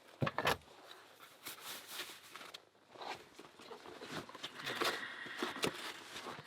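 Handling noises: a few sharp clicks about half a second in, then scattered faint clicks and soft rubbing.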